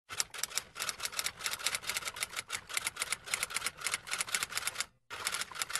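Rapid, irregular clatter of typewriter keys, several strokes a second, breaking off briefly about five seconds in and then resuming.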